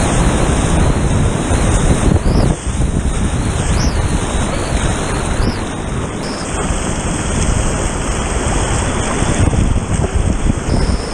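Loud, steady rushing of whitewater through a creek rapid, with wind-like buffeting on the microphone.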